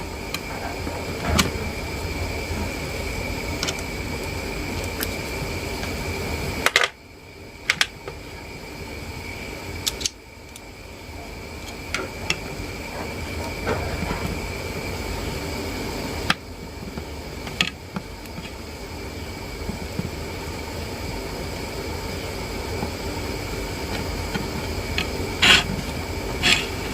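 Scattered light clicks and taps of small hand tools working on a smartphone, over a steady background hum. The hum drops away abruptly at a few points.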